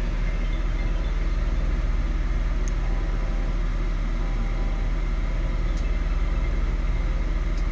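Steady low engine drone of a parked, idling tool truck, heard from inside its cargo area, with a couple of faint small ticks.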